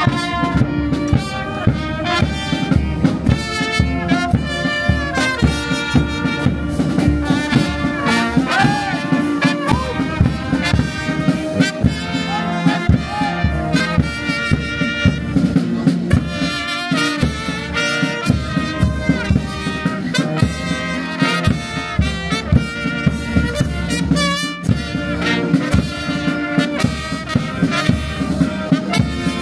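Brass band playing a march, with trumpets and trombones over a steady beat.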